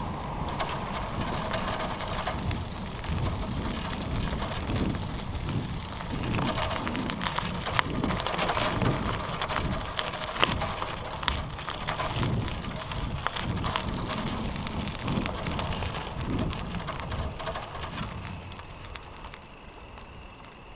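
Riding noise from a bicycle: wind rumbling on the microphone, with many small clicks and rattles from the road and bike, fading near the end.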